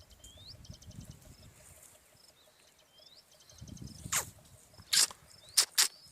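Baya weavers (Indian weaver birds) chirping: short high chirps, quick runs of ticking notes and rising whistled notes. In the second half come a few loud, short, rasping bursts, four of them close together.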